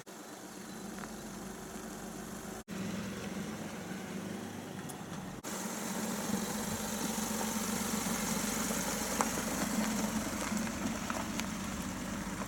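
Citroën C3's 1.2-litre three-cylinder PureTech petrol engine running at low revs as the car moves slowly on a gravel track, giving a steady low hum. The sound breaks off suddenly twice in the first half.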